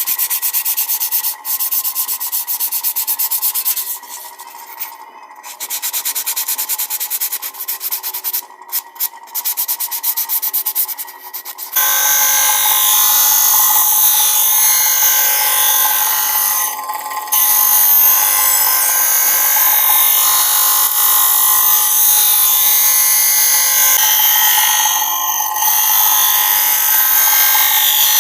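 Planer blade being ground on a homemade sharpening machine. For the first twelve seconds the grinding comes in rasping spells that stop and start; then it runs continuously and louder, with a steady high whine.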